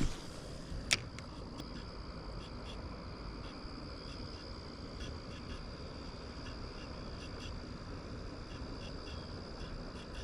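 Insects trilling steadily at one high pitch, with a single sharp click about a second in.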